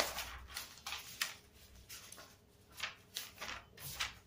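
Soft paper rustling, a string of short, irregular rustles as notes are handled and leafed through.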